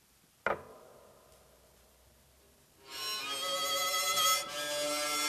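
Homemade bowed-and-struck experimental string instrument (orcheguitar): one sharp note rings out about half a second in and fades away. From about three seconds in, a bow is drawn across its strings, giving a loud, sustained, many-toned bowed sound.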